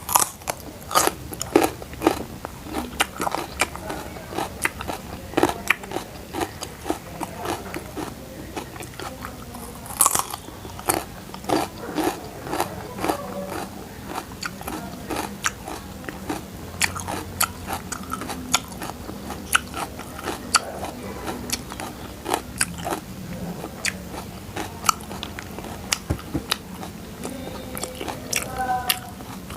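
A person chewing and biting crunchy food close to the microphone, with many sharp, irregular crunches, several a second.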